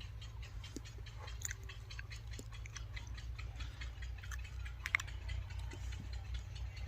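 A person chewing pieces of roasted guava: many small, irregular clicks and crunches, over a steady low hum.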